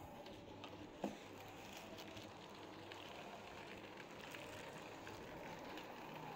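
Rain falling steadily, faint, with scattered small patters and one sharper knock about a second in.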